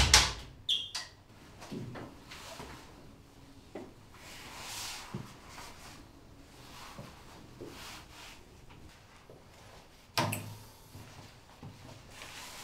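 Sliding glass shower door knocking on its track: a loud knock at the start with a few lighter knocks just after, and another loud knock about ten seconds in.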